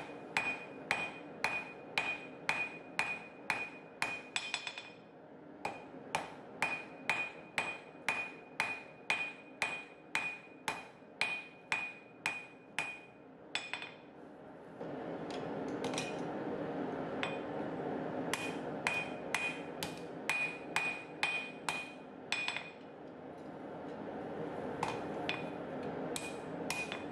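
Ball-peen hammer striking a hot mild steel bar on an anvil, about two blows a second, each with a bright ring, with two short pauses. The smith is forging the bar from square to octagonal at the transition. About halfway through, a steady rushing noise comes up beneath the blows.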